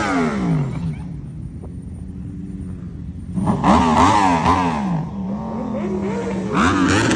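Car engines revving hard as cars drive past, in several quick rising-and-falling revs. Between the revs there is a low rumble and a falling pitch as one car goes by.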